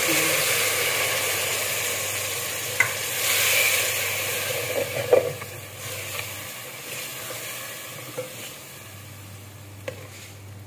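Tamarind water poured into hot masala in a metal pot, sizzling strongly at first and fading steadily as the liquid settles in. A spatula stirs and scrapes the pot, knocking against it a few times.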